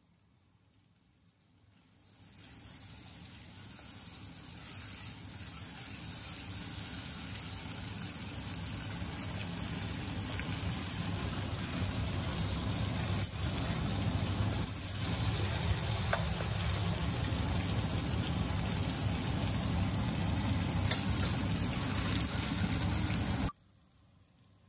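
Pots of fish curry simmering on a gas hob: a steady hiss and bubbling over a low rumble. It starts about two seconds in and cuts off suddenly near the end, with a single sharp click shortly before it stops.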